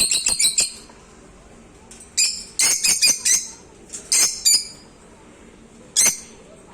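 Lovebird calling: a fast run of sharp, high chirps that stops just under a second in, then short groups of shrill calls at about two to three and a half seconds, around four seconds, and once more at six seconds.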